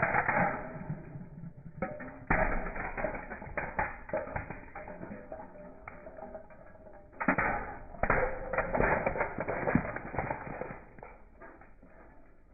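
A car tyre rolling over and crushing brittle objects: clusters of crackling and snapping, loudest at the start, about two seconds in and again from about seven seconds in, over a low engine rumble.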